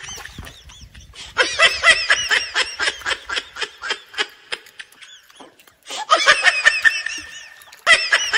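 Laughter in quick rhythmic ha-ha pulses, coming in three bouts with short breaks, one near the middle and one just before the end.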